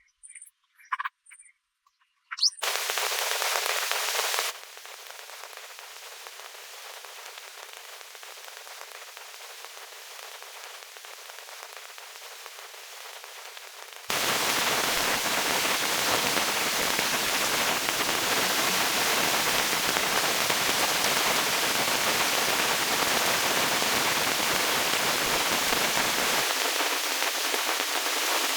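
Steady rain hiss in several edited stretches that change level abruptly; the loudest and fullest stretch starts about halfway through.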